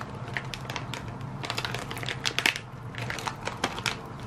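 Small plastic pet-treat packet crinkling and crackling in the hands as it is handled and opened: a run of irregular sharp crackles.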